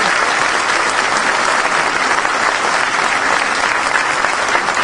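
An audience applauding, steady and dense.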